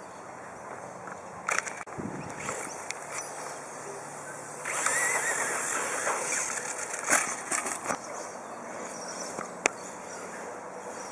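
Radio-controlled buggy driving outdoors: its motor whines up and down about halfway through over a steady hiss, with a few sharp clicks or knocks.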